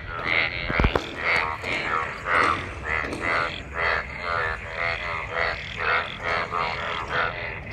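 A chorus of frogs after monsoon rain: many overlapping pulsed croaks, two to three calls a second. A brief low thump sounds about a second in.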